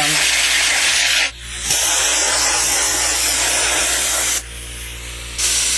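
Compressed air from an air-compressor blow gun blasting into a desktop computer's case and fans to blow the dust out: a loud hiss that breaks off briefly about a second in, runs on, eases off at about four seconds, then comes back in a short blast near the end.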